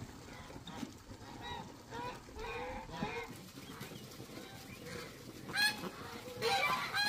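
Domestic poultry calling: a series of short honking calls, loudest near the end.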